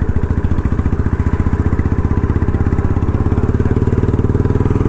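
Royal Enfield Bullet's single-cylinder engine running under way, with an even, rapid beat of exhaust pulses.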